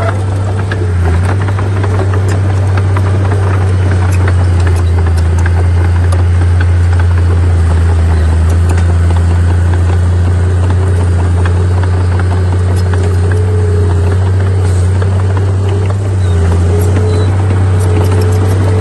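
Heavy diesel earthmoving machinery running steadily, a deep engine drone with a constant stream of metallic clicks and rattles over it.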